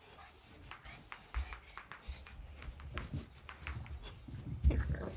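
Two excited Pekingese dogs scampering and hopping on the floor: a patter of light paw ticks with a few dull thumps, the loudest near the end.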